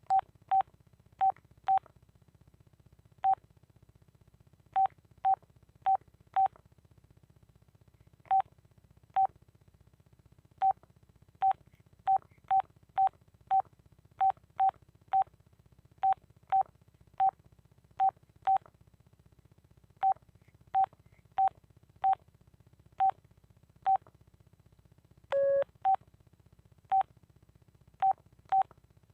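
Old Telit mobile phone's key-press beeps: short beeps all at one pitch, irregularly spaced at up to about three a second as the keys are pressed. About 25 seconds in there is one longer, lower beep.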